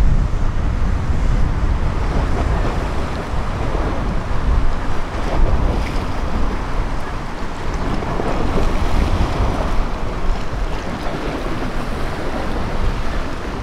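Steady rush of wind and water washing at the shoreline, with wind rumbling on the microphone.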